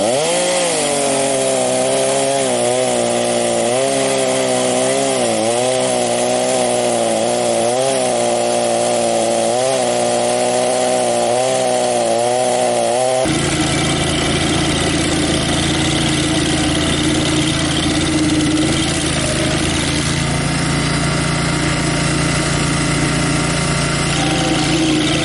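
Gasoline engine of a Barreto stump grinder running hard as its cutter wheel chews into an ash stump, the engine note sagging and recovering over and over as it takes each bite. About halfway it changes suddenly to a lower, steadier engine note.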